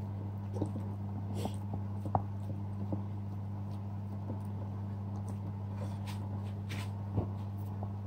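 Hands kneading soft plain-flour naan dough in a bowl: irregular small squelches and sticky slaps of the wet dough, over a steady low hum.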